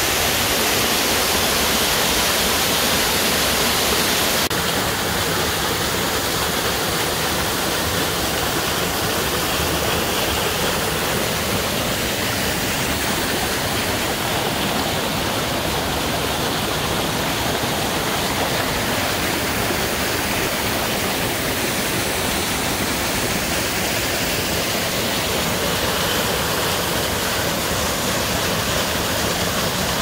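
Small mountain waterfall and stream rushing over rocks: a steady hiss of falling and running water. The sound shifts slightly about four seconds in, becoming a little less bright.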